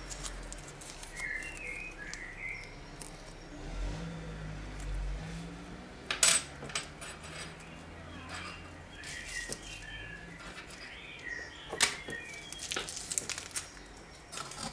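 Handling noise from a smartphone and its packaging: scattered light clicks and taps, with two sharper knocks about six and twelve seconds in. A few short high chirps sound faintly behind them.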